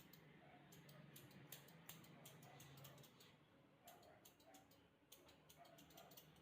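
Faint, quick snipping clicks in irregular clusters from grooming scissors trimming a dog's coat, over near silence.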